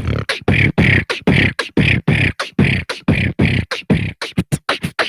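Human beatboxing: a steady run of mouth-made drum hits, about four a second, quickening into a fast roll near the end and cutting off suddenly.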